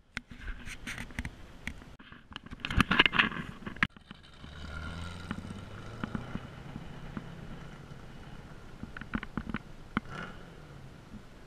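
Clicks, knocks and scrapes of a handheld camera being handled, loudest about three seconds in. After that comes a low, steady hum of a running vehicle engine.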